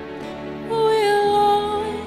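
Background music. A long held note comes in louder under a second in and lasts about a second.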